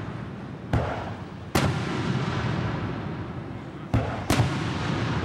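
Aerial firework shells bursting: four sharp booms, a pair in the first couple of seconds and a quicker pair near the end, over a steady low rumble.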